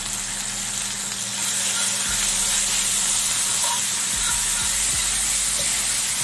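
Olive oil sizzling in a skillet with minced garlic and sprigs of rosemary and thyme frying in it: a steady hiss that grows louder about a second and a half in and then holds.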